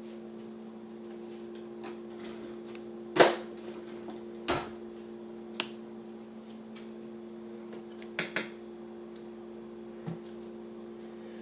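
Scattered sharp knocks and clicks of kitchen items being handled and set down during clean-up, the loudest about three seconds in and a quick double knock past the middle, over a steady low hum.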